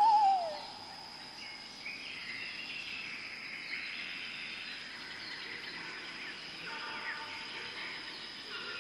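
Birds calling: a loud whistled call sliding down in pitch right at the start, then many faint, distant chirps over a steady high tone.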